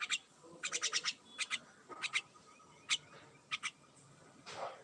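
A bird chirping: short, sharp chirps, with a quick run of four or five near the start, then single or paired chirps every half second or so.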